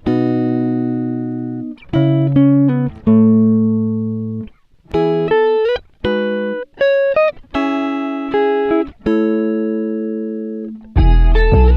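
Background music: slow plucked chords, each ringing out and fading before the next, with a deep bass and beat coming in near the end.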